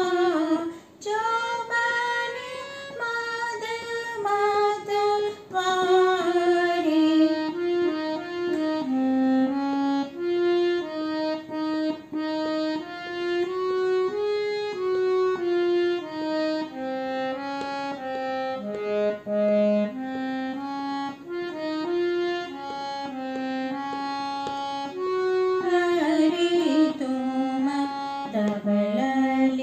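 Harmonium playing a devotional melody in held notes that step up and down. A woman's singing voice joins it briefly at the start and again near the end.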